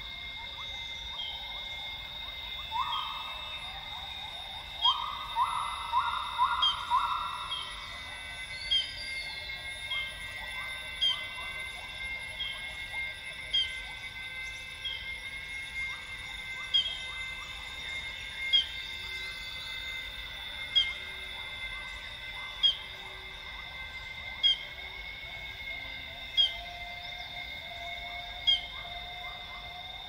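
Northern grey gibbon song: a quick run of rising notes between about three and eight seconds in, and a slow rising whoop near the end. Underneath is a steady high-pitched drone, with a short sharp call repeated about every two seconds that is the loudest sound.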